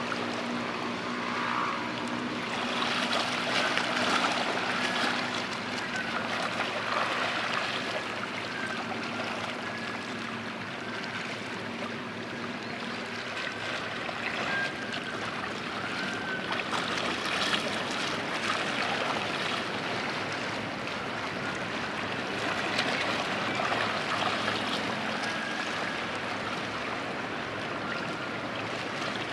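Water rushing and splashing in a cruise ship's wash beside the quay. A low machinery hum from the ship fades out in the first couple of seconds.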